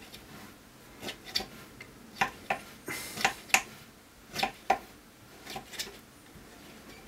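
Knife trimming short-crust pastry around the rim of a pie dish: about a dozen light, irregular clicks and scrapes as the blade cuts along and knocks against the dish edge.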